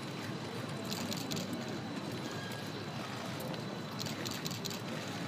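Steady outdoor background noise around a racecourse paddock as racehorses are led past, with two short patches of clicking, about a second in and again about four seconds in.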